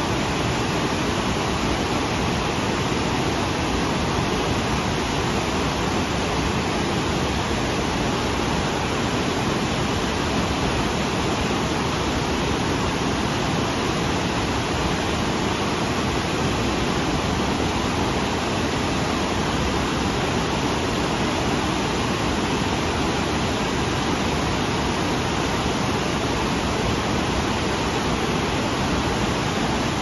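Waterfall cascading over rock ledges into whitewater rapids: a steady, unbroken rush of water.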